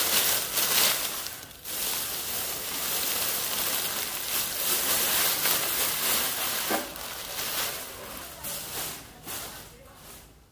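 Thin black plastic carrier bag rustling and crinkling as it is pulled off a bundled roll of canvas, easing off near the end.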